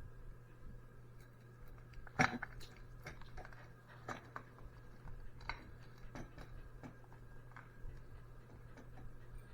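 Light clicks and rattles of a ceiling fan's pull-chain switch and its chain being handled and fed through the switch housing, with one louder click about two seconds in.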